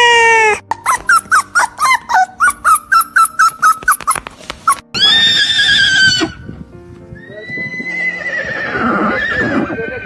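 A cat's long meow ends about half a second in. A quick run of about twenty short calls follows, then a horse whinnying twice: a shaky high call about five seconds in, and a longer, wavering call that falls in pitch near the end.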